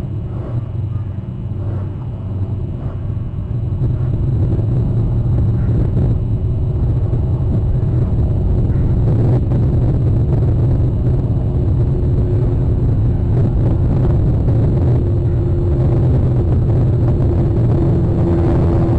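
A steady low engine rumble that grows louder about four seconds in and then holds.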